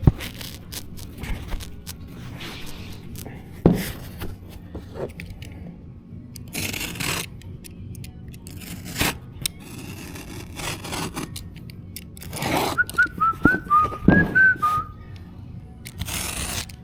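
Knife blade scraping through a carpet tile in several separate strokes, with a few sharp knocks in between. A person whistles a short run of notes about two-thirds of the way through.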